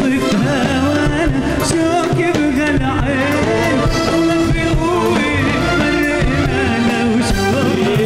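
Male vocalist singing an Arabic pop song live into a handheld microphone, his voice bending through ornamented melodic turns over a steady backing band with drum kit and bass guitar.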